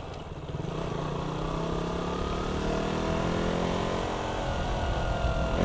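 KTM Duke 200's single-cylinder engine briefly dropping off for the upshift into second gear, then pulling steadily in second with the revs slowly climbing.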